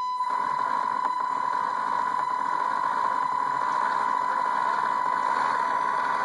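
Tamiya RC semi truck's drivetrain running steadily, with the electric motor turning the three-speed transmission, the added 4:1 reduction gearbox and the U-jointed driveshaft. It makes a steady high whine over a constant whir of gear noise.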